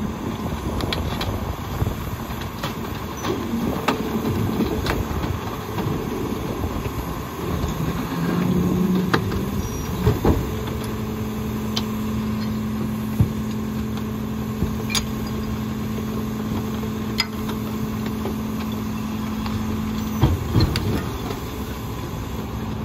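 McNeilus rear-loader garbage truck running its packer cycle: the engine and hydraulics drive the blade as it crushes a mattress into the hopper. A steady drone holds from about ten seconds in to about twenty seconds in, with scattered knocks.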